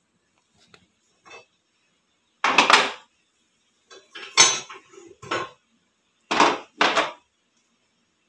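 Metal pan supports of a glass-top gas stove being set down onto the burners, clattering in three short bursts a couple of seconds in, the first and last each two quick clanks.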